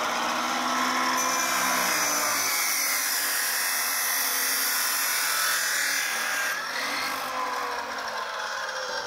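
Abrasive chop saw grinding through steel exhaust tubing, a steady loud cutting noise. About two-thirds of the way through, the cut finishes and the motor winds down with a falling whine.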